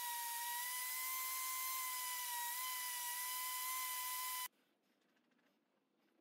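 Random orbital sander running on wood with a steady high-pitched whine over a hiss. It cuts off abruptly about four and a half seconds in, leaving near silence with a few faint ticks.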